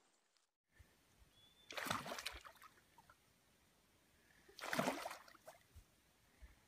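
Two short splashes of water, about three seconds apart, each lasting about half a second.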